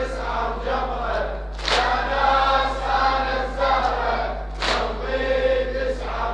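A congregation of mourners chanting a latmiya refrain together in Arabic, many voices in unison in a slow chant with long-held notes.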